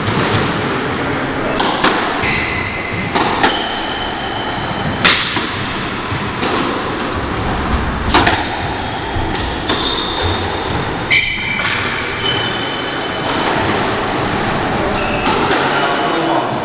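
Squash rally: sharp hits of the ball off rackets and walls about every second and a half, with shoes squeaking on the wooden court floor between the shots.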